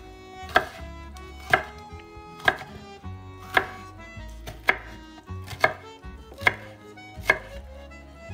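Chef's knife cutting an orange bell pepper into strips on a wooden cutting board: about eight sharp knocks of the blade hitting the board, roughly one a second. Faint background music underneath.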